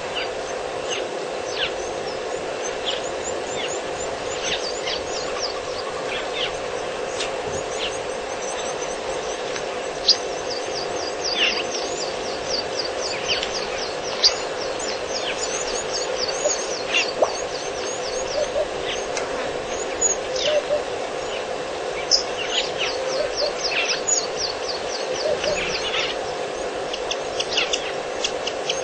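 Several wild birds calling: quick runs of high, falling chirps and scattered single calls, over a steady low hum.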